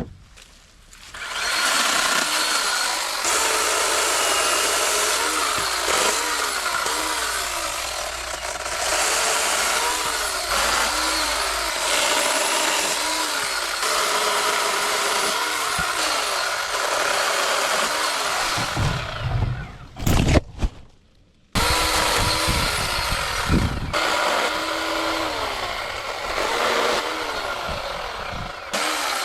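Ridgid battery-powered electric chainsaw with a 12-inch bar cutting into a fallen birch tree, its motor pitch repeatedly sagging under load and recovering. About two-thirds of the way through it stops briefly with a couple of heavy thuds, then starts cutting again.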